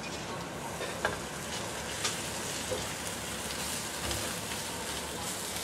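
Minced garlic and ginger sizzling steadily in hot oil in a nonstick wok as more oil is poured in, with a spatula stirring and a few light clicks against the pan.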